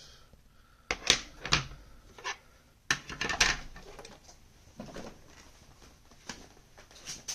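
Small metal tools and knife parts being handled and set down on a hard surface: a string of separate clicks and clatters, the loudest about a second in and again around three seconds in, fainter ones later.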